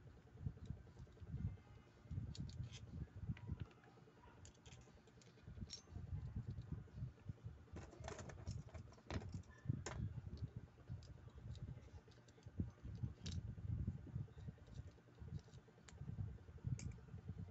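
Faint, irregular clicks and light taps of small metal and plastic spinning-reel parts being handled and fitted together by hand, with dull low knocks against the work surface. The clicks come thickest about eight to ten seconds in.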